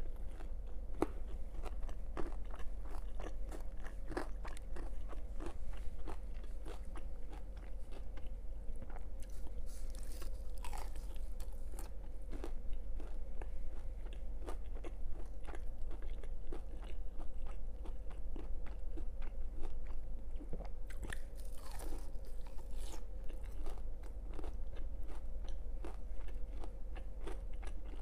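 Close-miked chewing and biting of crispy breaded fried chicken, with many short sharp crunches throughout, over a faint steady hum.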